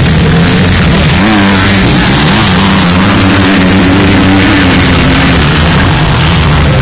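Motocross bike engines revving loudly, their pitch repeatedly rising and falling as the throttle is opened and closed.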